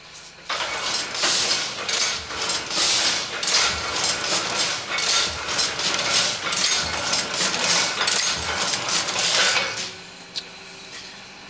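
Heidelberg printing press running with a rhythmic mechanical clatter. It starts abruptly just after the start and stops abruptly shortly before the end.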